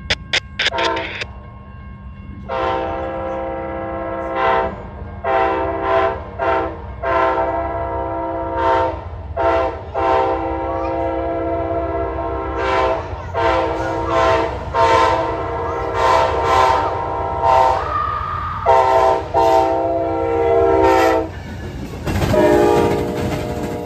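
Amtrak passenger train's diesel locomotive horn sounding a long series of blasts, long and short, for the grade crossings as the train approaches. Crossing-signal bell dings at the start. Near the end the locomotives pass close by with a heavy rumble of engines and wheels.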